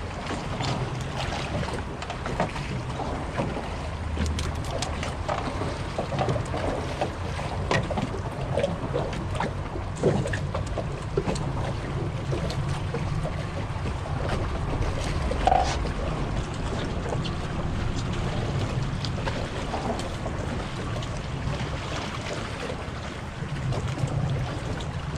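Water lapping against a small skiff's hull beside bridge pilings, with wind buffeting the microphone and scattered small clicks and knocks from handling the tackle.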